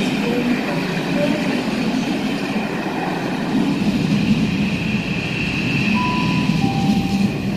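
A train of passenger coaches rolling past close by, with a steady rumble of wheels on rail and a steady high ringing note over it.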